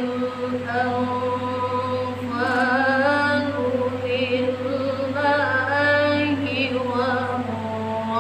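A woman's voice chanting Quranic recitation (tilawah) in a slow melodic style. She holds long notes that shift in pitch and adds short ornamented turns.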